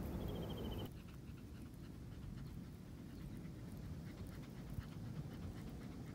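Yorkshire terrier panting softly.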